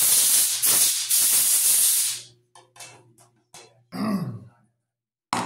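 A loud, steady hiss of a pressurized spray or air jet, lasting about two and a half seconds with a brief break near the start. A short low sound falling in pitch follows about four seconds in.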